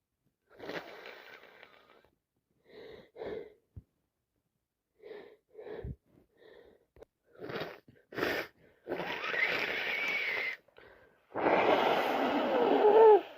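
A woman with a heavy, congested cold sniffing and catching short breaths, then blowing her nose hard into a tissue twice in long, wet blows, the second the loudest.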